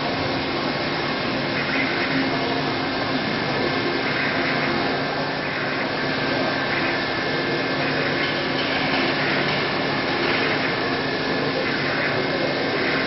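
High-speed CNC milling spindle cutting a metal part, a steady, unbroken machining noise with faint steady tones running through it.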